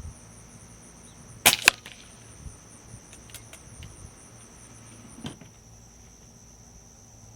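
A .22 Benjamin Marauder pistol, a precharged pneumatic air gun, fires one shot: a sharp crack followed about a fifth of a second later by a second sharp crack, then a fainter click some seconds later. Crickets chirp steadily throughout as a high, pulsing trill.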